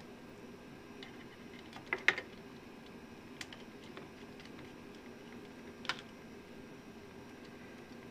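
A few sharp clicks and taps of small screws and metal parts being handled and refitted into the battery charger's heat sink, the loudest a double click about two seconds in, over a steady low hum.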